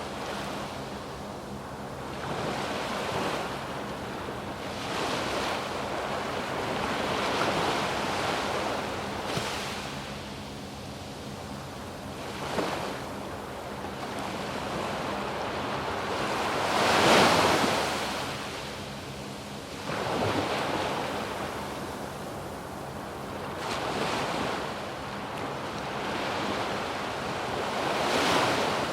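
Waves breaking and washing up a sandy beach, swelling and falling every few seconds, the biggest break about seventeen seconds in. Wind rumbles on the microphone.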